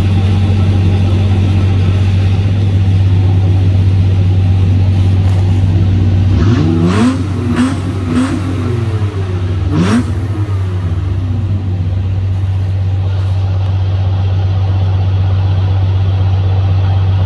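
A rollback tow truck's engine runs with a steady deep hum while the hydraulic bed tilts down. About six seconds in, an engine revs up and down several times for a few seconds, with a few sharp metallic knocks.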